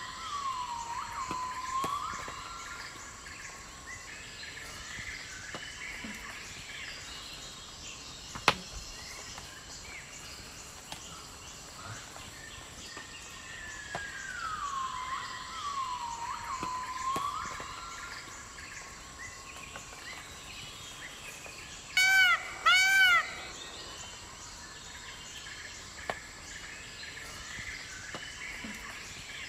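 Outdoor bird ambience over a steady background hiss: a bird's song phrase sliding down in pitch, heard twice. About two-thirds of the way through come two loud, short calls in quick succession, each rising and falling in pitch.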